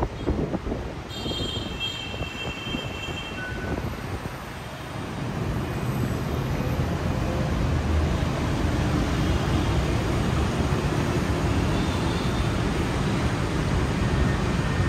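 Road traffic passing, a steady rush of engines and tyres that grows louder about five seconds in, with a brief high-pitched tone near the start.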